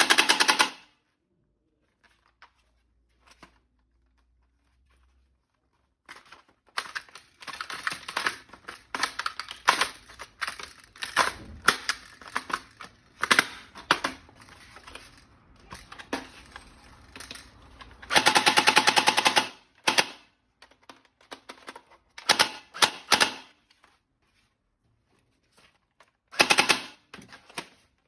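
Toy gun firing in rapid rattling bursts: a brief burst at the start, a longer one of about two seconds well past the middle, and shorter bursts near the end. Irregular plastic clicks and rattles come in between.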